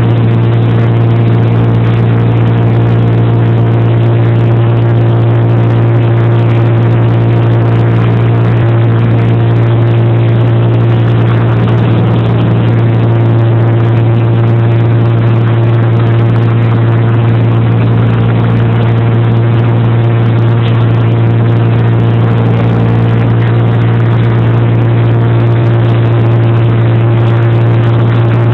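Engine running with a loud, steady hum at one constant pitch, never speeding up or slowing down.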